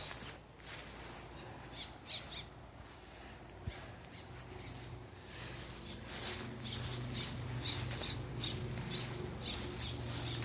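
Birds calling outdoors in a quick run of short, high chirps and squawks that starts about halfway in, over a faint low steady hum.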